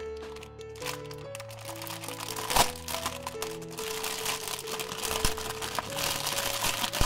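Clear plastic packaging crinkling and crackling as a stack of sealed memo pads is handled, with the sharpest crackle about two and a half seconds in. It plays over background music with long held notes.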